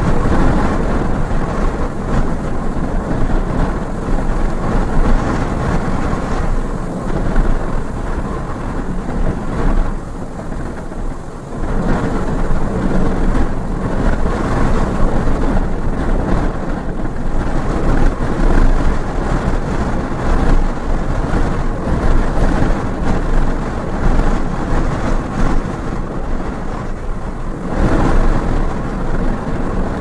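Strong, gusty wind buffeting the microphone: a heavy rumble that swells and drops, with a short lull a little over ten seconds in.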